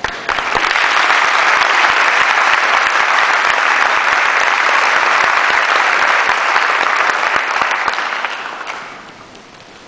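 Audience applauding, starting at once, holding steady for about eight seconds, then dying away near the end.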